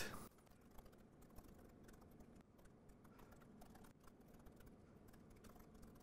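Faint typing on a laptop keyboard: an irregular run of soft key clicks.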